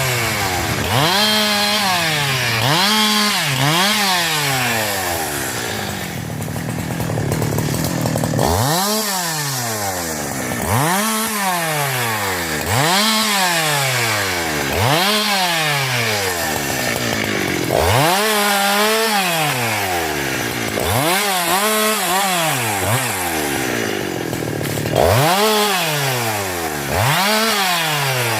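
Husqvarna 372 two-stroke chainsaw at work. The engine revs climb and then sag in repeated swells about every two seconds, with a short steadier, lower-revving stretch around the middle, as the chain is run into wood over and over.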